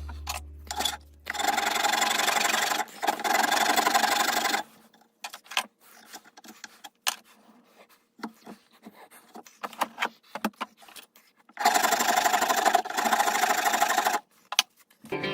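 Wooden rifle stock being sanded or rasped in two long spells, with scattered light taps and knocks in the quiet between them.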